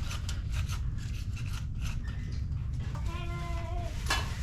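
Spline roller tool rubbing new screen mesh into the groove of a screen-door frame, making a run of short scratchy strokes. About three seconds in comes a brief, steady, voice-like tone, and a sharp click follows near the end.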